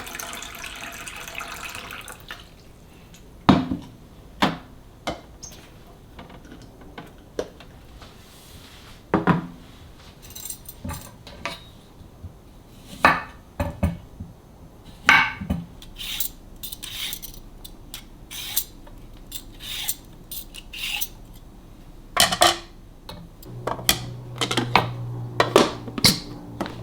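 Kitchen handling sounds: dishes, containers and utensils knocked and set down, a string of separate clinks and clacks. There is a short rushing noise at the start, and a low steady hum comes in near the end.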